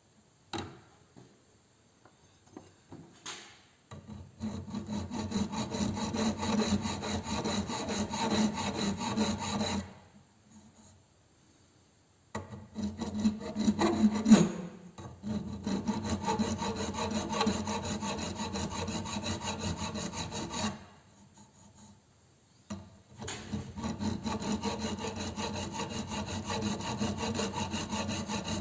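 Hand file rasping on a rough metal casting of the fuse box light-switch housing, cleaning it up. It comes in three bouts of quick back-and-forth strokes separated by short pauses, with a single knock partway through.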